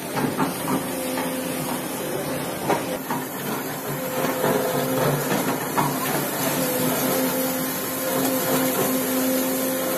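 Excavator engine and hydraulics running steadily, a constant hum under a noisy hiss, with a few faint knocks.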